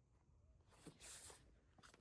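Faint rustling and scraping with a few small clicks, including a brief hiss about a second in, as of things being handled.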